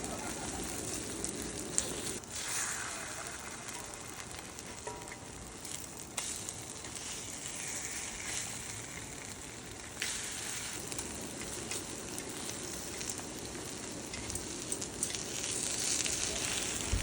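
Meat frying with a steady sizzle that swells and eases a few times.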